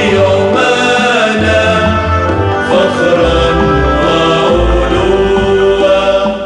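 Music: a choir singing an Arabic patriotic anthem over instrumental accompaniment, with low sustained bass notes underneath.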